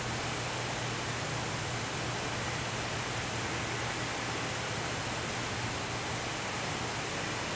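Water spraying steadily from a row of flat-fan spray nozzles onto a patternator table: a continuous even hiss, with a low steady hum beneath it.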